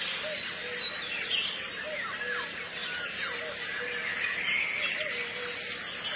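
Many birds chirping and twittering over a soft, regularly repeating low note, like a background music track of birdsong.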